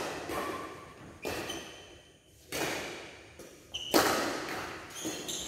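Badminton rackets striking a shuttlecock during a rally: a series of sharp hits roughly a second apart, each ringing briefly in the hall's echo.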